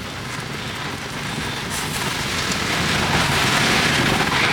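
Mini savory pancakes sizzling in a hot pan: a steady hiss that swells louder about three seconds in and drops off at the very end.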